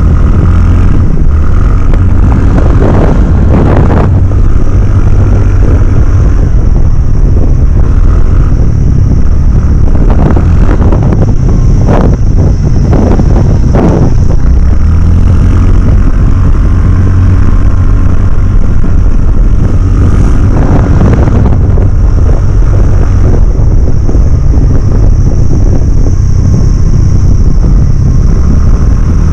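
Wind buffeting the microphone of a camera on a moving motorcycle, a loud steady rumble, with the motorcycle's engine running underneath. A few brief louder surges come through along the way.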